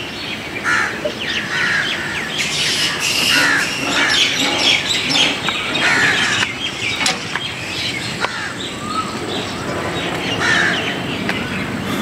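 Many birds calling at once: short chirps and calls that overlap and keep coming.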